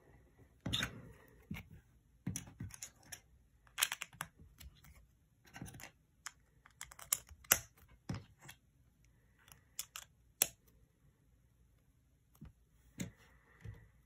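Hard plastic LEGO bricks and plates clicking and clacking as they are handled and knocked against a wooden table, in irregular clusters of sharp clicks.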